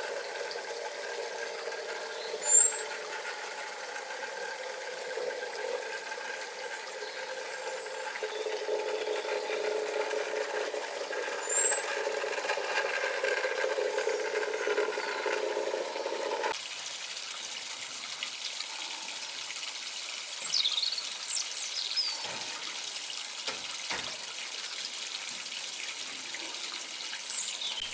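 A model garden-railway rail car running slowly along the track, its motor and wheels giving a steady whine with some squeal. About two-thirds of the way in, the sound changes abruptly to the pond's small waterfall trickling, with a few high chirps.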